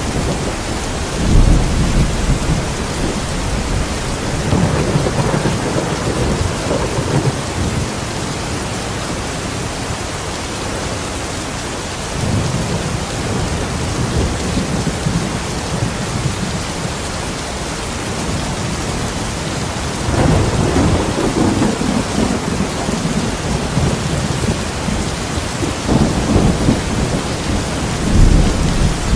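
Steady heavy rain with rolling thunder, the low rumbles swelling and fading several times.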